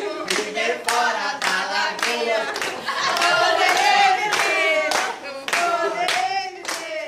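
A small group of adults singing together while clapping in rhythm, about three claps a second.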